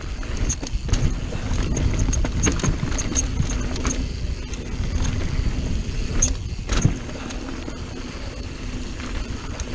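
Mountain bike riding fast down a dirt and rock singletrack: a steady low rumble from the tyres and rushing air, with frequent clicks and rattles from the bike jolting over bumps.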